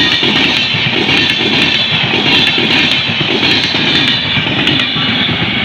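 A train passing close by: a loud, steady rumble of wheels on rail, with a clatter repeating about twice a second.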